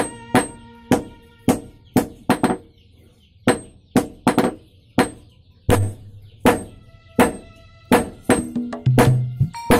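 A hammer striking the steel of a sickle blade, about two blows a second with a short metallic ring after each, some blows doubled. Background music plays under the blows.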